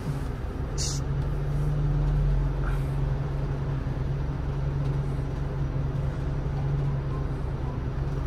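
Vehicle engine idling, heard inside the cabin: a steady low hum that comes up at the start and holds. A brief sharp high sound about a second in.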